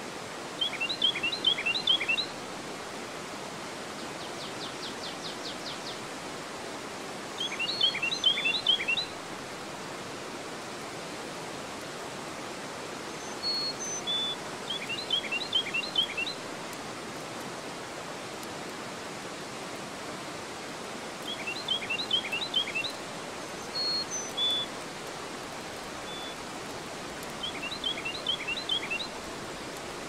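Steady rush of river water pouring over a dam's weir and through the rapids below. Over it a songbird repeats a short phrase of quick descending notes five times, about every six to seven seconds, with a brief fast trill about four seconds in.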